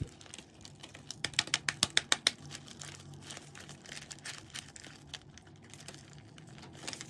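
Thin clear plastic orchid pot crinkling and clicking as it is squeezed and flexed by hand to loosen a root ball stuck to its walls. A quick run of sharp clicks comes between about one and two and a half seconds in, then sparser ones.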